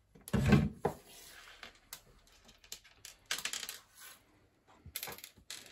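Aluminium toaster end casing and its mains cable being handled and shifted on a workbench. There is a loud knock and rattle about half a second in, then scattered light clicks and metallic clatters.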